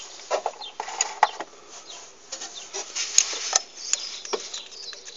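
Scattered light clicks, taps and scrapes at irregular intervals as a hand works a pencil past hoses and cables into a starter motor's empty bolt hole, with handling rustle close to the microphone.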